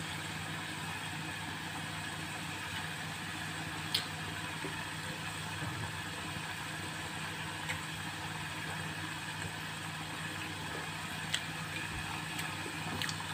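Slices of elephant yam deep-frying in a saucepan of oil: a steady bubbling sizzle with a couple of sharp pops, over a low steady hum.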